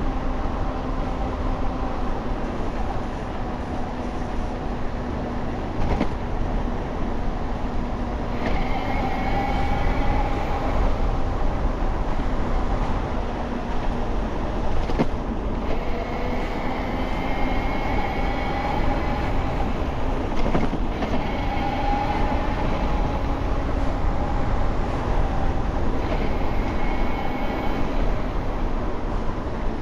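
A vehicle in motion: steady running and rolling noise with a whine that rises and falls in pitch and comes and goes every few seconds.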